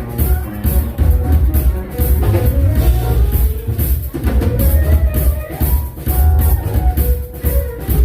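Live jazz band playing: drum kit with cymbals keeping a steady beat, a deep bass line, and a melodic lead line gliding over them.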